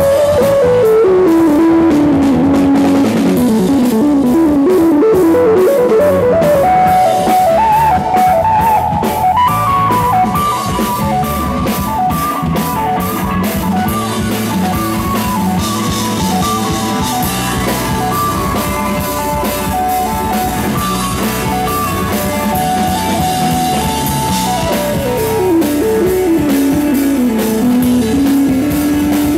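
Instrumental rock band playing live, with electric guitar, keyboards, bass and drum kit. A lead line runs down in quick steps, climbs back up and holds higher notes, then runs down again near the end.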